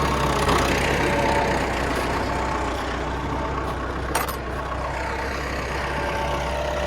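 Farm tractor engine running steadily, with a single sharp click about four seconds in.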